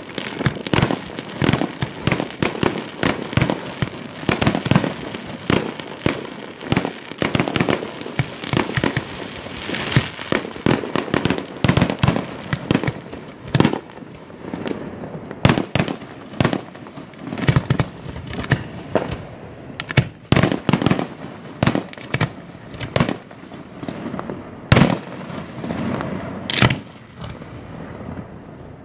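Aerial fireworks barrage: shells bursting one after another in rapid succession, many sharp bangs overlapping, thinning out to scattered reports in the second half.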